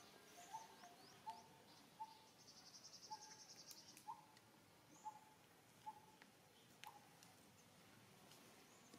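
Faint birds and insects: a short mid-pitched call repeated about once a second, thin high chirps, and a brief rapid trill from about two and a half to four seconds in.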